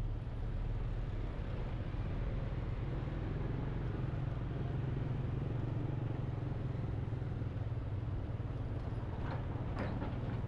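Street traffic at close range: motorcycle and bus engines running steadily in slow-moving traffic, a continuous low drone with road noise.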